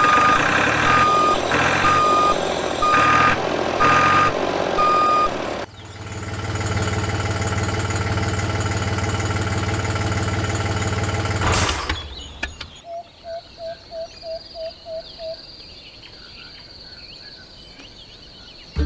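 Vehicle reversing beeper sounding six times, about once a second, over a running truck or tractor engine. The engine then runs on steadily for several seconds and cuts off suddenly, followed by a run of about eight short, high chirps.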